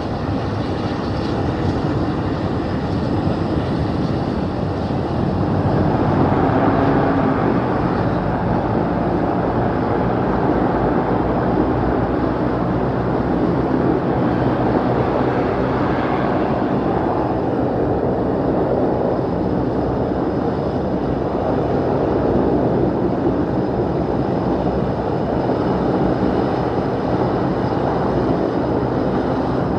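Four Pratt & Whitney PT6A-50 turboprops of a de Havilland Dash 7 running at low taxi power with all propellers out of feather: a steady propeller and engine drone that swells slightly twice.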